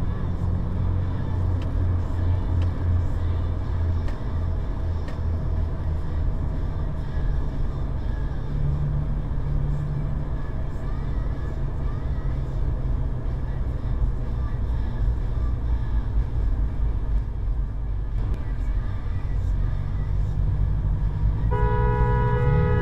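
Steady low engine and road drone heard from inside a car in slow traffic. Near the end a car horn sounds in one long, held blast.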